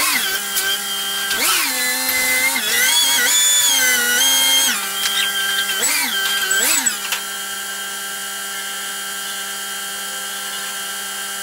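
Rough-terrain forklift running, its engine and drive giving a high whine that swoops up in pitch and back down several times in the first seven seconds as it is revved. From about seven seconds in it holds a steady hum.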